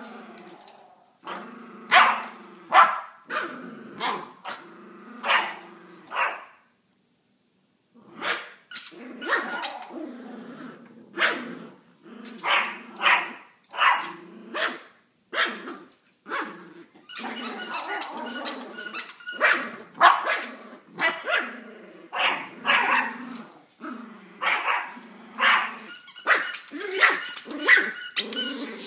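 Two dogs, a Rottweiler puppy and a Yorkshire terrier, growling and barking in play while tugging at a long plush toy. There is a run of short growls and sharper barks, with a brief silent gap about six seconds in.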